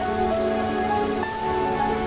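Steady rain falling, under slow ambient music of long held notes that change pitch every second or so.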